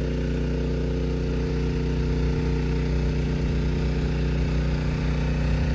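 Engine running steadily at an even speed, loud enough to drown out a voice nearby.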